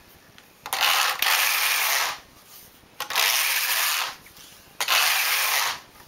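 Carriage of a domestic flatbed knitting machine slid back and forth across the metal needle bed, knitting rows of yarn: three passes, each a rasping whir of about a second to a second and a half, the last two nearly back to back.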